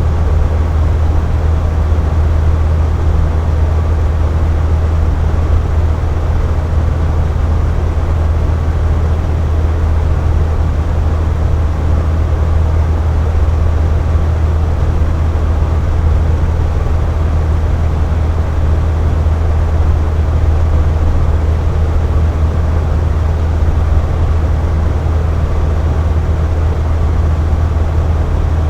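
Box fan running steadily: an even rush of air with a strong low hum underneath, unchanging throughout.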